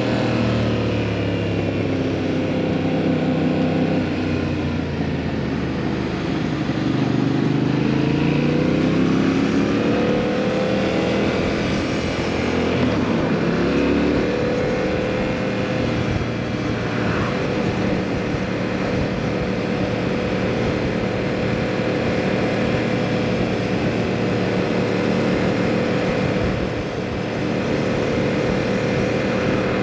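2022 Yamaha MT-07's 689 cc parallel-twin engine through a full Akrapovič exhaust, heard from the rider's seat while riding. The engine note dips, climbs again as the bike accelerates, and from about halfway holds steady at a cruise.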